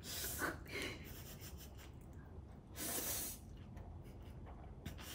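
Noodles being slurped into the mouth right next to a microphone, with small wet mouth clicks in between; the longest and loudest slurp comes about three seconds in.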